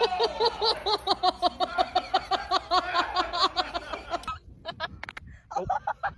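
A person laughing hard in a long run of rhythmic "ha-ha-ha" bursts, about five a second, which cuts off suddenly about four seconds in, followed by quieter, broken sounds.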